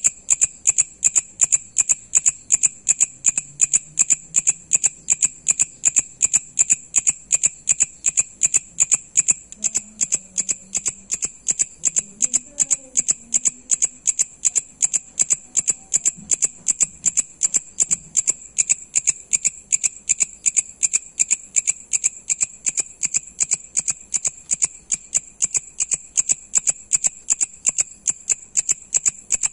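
Leaf-mimic katydid calling: a steady train of sharp, high-pitched clicking chirps, evenly spaced at about three a second.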